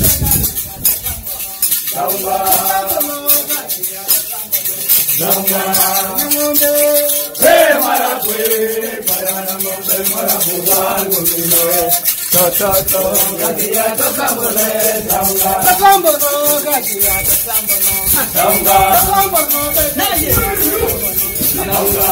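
A group of voices singing together, accompanied by handheld plastic shakers rattling continuously in time, with brief pauses in the singing between phrases.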